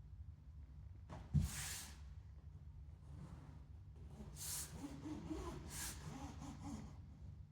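A single sharp knock about a second and a half in, then a few short scratchy strokes: handling a PVC rego panel against an inflatable boat's tube and tracing around it with a pencil.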